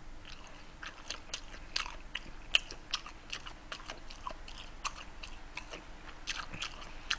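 A person chewing a mouthful of gimbap (seaweed-wrapped rice roll) close to the microphone: quiet, irregular wet clicks of the mouth and teeth, a few each second.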